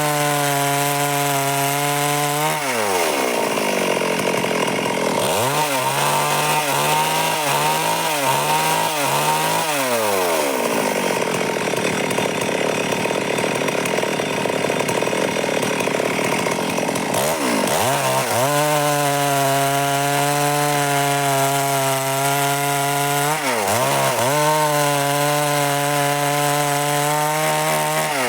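Stihl MS 382 two-stroke chainsaw running at high revs and cutting through wood. Its engine note sags and recovers again and again as the chain bites, with a long loaded stretch about halfway through.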